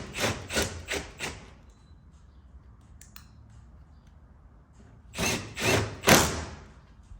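Hand ratchet driving 10 mm bolts into a truck door, in quick rasping strokes: a run of about five at the start, then three more about five seconds in.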